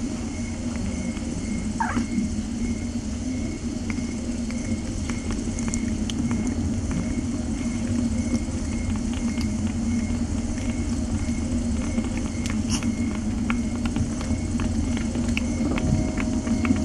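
Mother cat purring steadily while her kittens nurse, with scattered soft clicks and a kitten's brief rising squeak about two seconds in.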